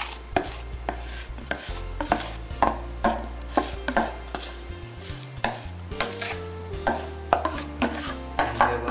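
Background music with a steady clicking beat, about two sharp strikes a second, over held low notes that change every few seconds.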